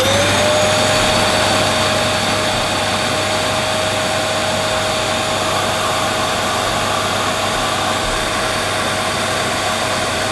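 Dyson DC11 canister vacuum cleaner running at full speed, its motor giving a steady high whine over an even rush of airflow; the motor sounds healthy.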